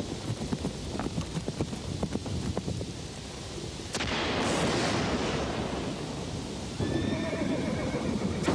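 A horse's hoofbeats over a low rumble of rain, then a sharp crack about four seconds in, followed by a loud rushing crash as lightning strikes a tree and it falls. A horse whinnies near the end.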